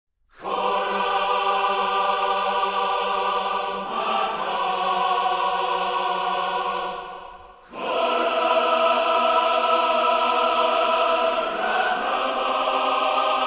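Choral music: long held choir chords that come in out of silence and change every few seconds, fading briefly about halfway through before a new chord swells back in.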